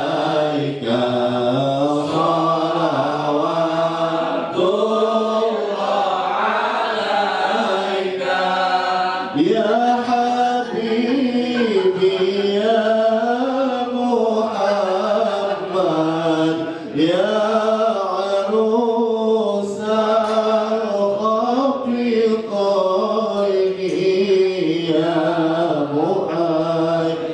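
A man chanting Arabic shalawat, devotional praise of the Prophet, into a microphone. He sings long, wavering, ornamented melodic lines with only brief pauses for breath.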